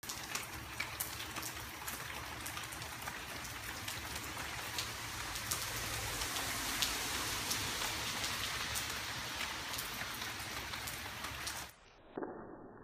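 Steady rain, with many individual drops ticking sharply close by. It cuts off suddenly about a second before the end.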